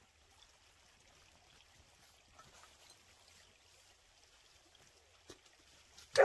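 Faint, steady outdoor background hiss with a few soft clicks, then a sudden loud sound right at the very end.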